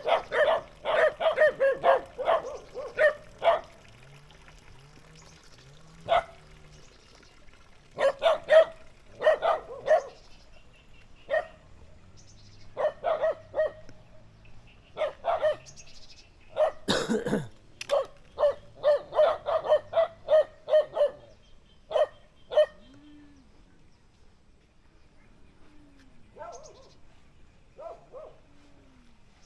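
Village dogs barking in rapid volleys at a passing stranger, several bursts of quick repeated barks with short pauses between, fading to a few faint barks near the end.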